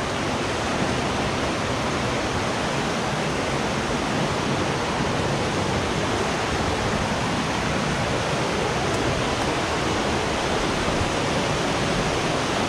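Rushing water of the Folly River, swollen after a hurricane: a steady, even rush of water from the river and its falls close by.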